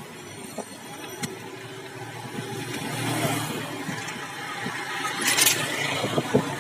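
Busy road traffic with a large bus engine running close by, growing louder about two to three seconds in, and a short sharp hiss a little after five seconds.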